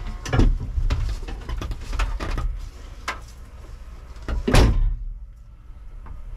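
Driver climbing out of a caged race car: knocks and clatter against the cabin, then the driver's door slams shut about four and a half seconds in, after which outside sound is muffled. A low steady rumble runs underneath.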